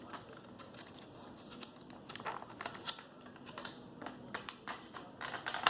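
Plastic packaging of a DDR5 RAM stick being handled and pried open: irregular crinkling and small clicks, busier about two seconds in and again near the end.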